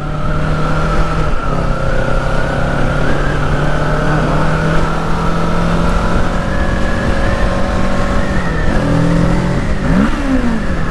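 Kawasaki Ninja 650's parallel-twin engine, on its stock exhaust, held at steady revs for about eight seconds. Near the end the revs drop, then dip and rise again.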